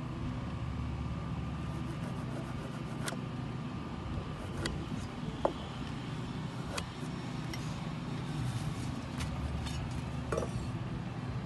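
An engine idling steadily in the background, with a few light clicks and taps as a pencil and a metal speed square are set against a wooden board.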